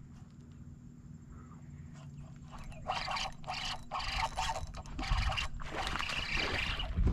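A hooked snook fighting at the surface. The spinning reel's drag buzzes in a series of short bursts as the fish pulls line, about three seconds in, and the fish splashes in a longer burst near the end.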